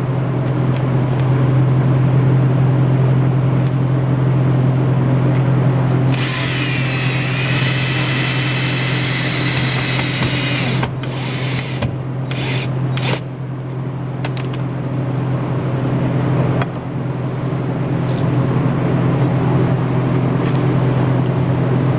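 A power drill runs for about five seconds, starting about six seconds in, then gives a few short bursts, all over a steady low hum.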